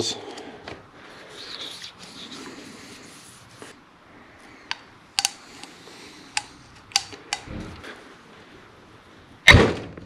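Steel hydraulic cylinder rod and gland being handled on a workbench tray: faint rubbing and shuffling, a handful of sharp clicks and knocks in the middle, then one heavy thump near the end as the rod is stood up in the gland.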